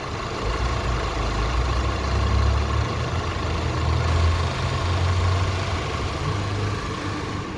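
2006 Audi A4's engine idling steadily, a low hum with a thin steady whine above it.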